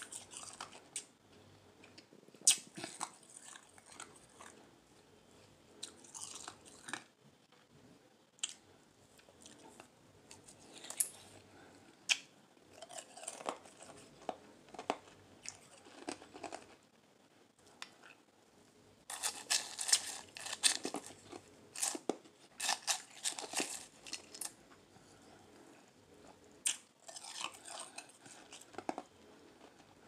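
Crushed ice being bitten and chewed, with crisp irregular crunches. The crunching comes thickest and loudest for a few seconds a little past the middle.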